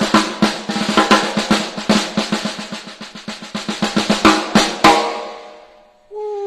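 Tama Starphonic 14x6 maple snare drum played in a fast run of strokes with quick flurries, ending with a last hit about five seconds in that rings out. A falling held tone starts just before the end.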